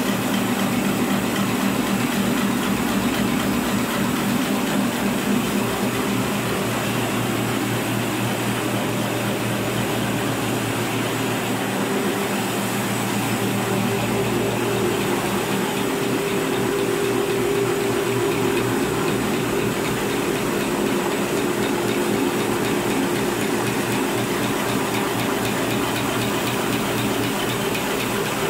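A 1/6-fold dispenser napkin making machine running steadily as paper feeds through its rollers: a continuous machine hum over an even hiss, its higher hum tone growing louder about halfway through.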